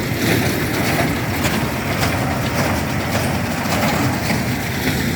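A tractor engine running steadily while pulling a hay baler, with the baler's mechanism working as it picks up and packs hay.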